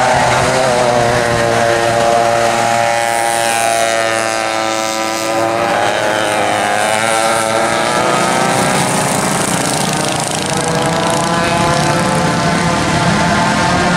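A pack of vintage racing go-karts running flat out, several small kart engines heard at once, in a combined field of modified McCulloch MC-49 rear engines and flathead engines. Their overlapping pitches fall and then rise again as a group of karts passes close by a few seconds in.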